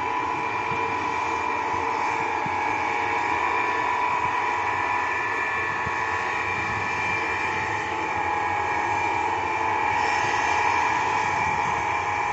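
Ilyushin Il-76MD's four Soloviev D-30KP turbofans running steadily, a loud jet-engine noise with a high, screaming whine made of several held tones.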